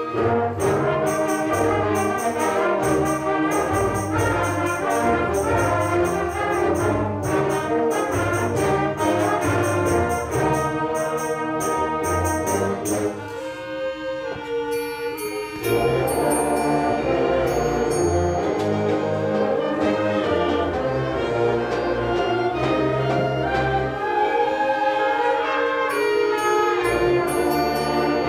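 Middle school concert band playing live, woodwinds and brass together over low parts. About halfway through the band drops back to a thinner, quieter passage for a couple of seconds before the full band comes back in.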